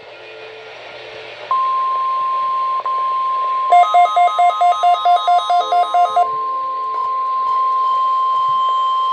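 NOAA Weather Radio warning alarm tone heard from a weather radio receiver: a single steady high tone that comes on about a second and a half in and holds, marking the weekly test of the alarm. Midway, a rapid electronic beeping of about four to five beeps a second joins it for a couple of seconds.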